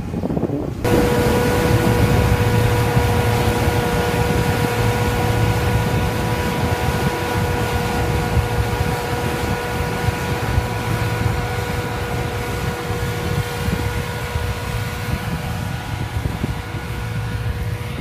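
Massey Ferguson IDEAL combine harvester running close by while harvesting wheat: a steady whine over a low rumble from its engine and threshing machinery, with wind buffeting the microphone. The sound cuts in suddenly about a second in.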